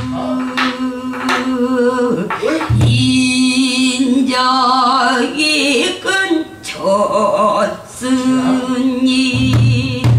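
A woman singing pansori: long held notes that waver and bend in pitch, with strokes on a buk barrel drum underneath.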